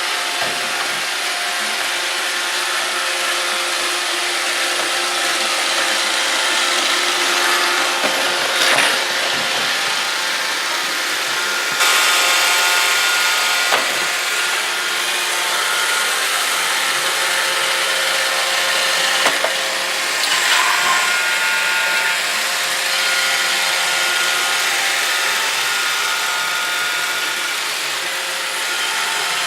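iRobot Roomba 650 robot vacuum running: a steady whir of its motors and brushes with a few steady whining tones, and now and then a sharp click or knock.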